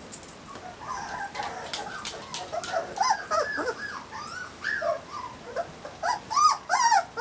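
Dogs whining and yipping in short high calls that rise and fall in pitch. The calls come louder and closer together toward the end.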